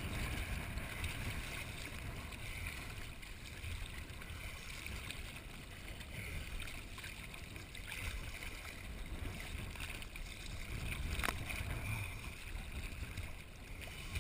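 Sea water sloshing and splashing around divers swimming at the surface, with a steady low rumble and one sharp click about eleven seconds in.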